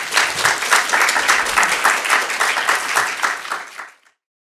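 Audience applauding, dense steady clapping that cuts off abruptly about four seconds in.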